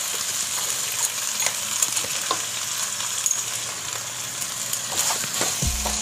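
Mutton and masala frying in a pan with a steady sizzle, as a spatula stirs it with scattered scrapes and taps against the pan, while the paste is being worked in.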